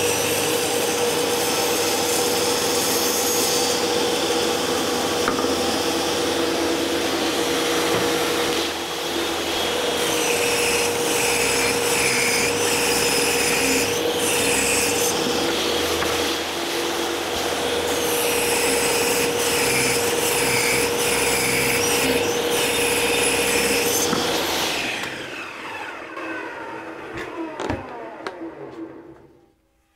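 Table saw running and ripping a thin strip off the rounded edge of a wooden frame piece to leave a square edge, a steady hum under the rasp of the blade in the wood. About three-quarters of the way through the saw is switched off and the blade spins down in a falling tone, fading out near the end.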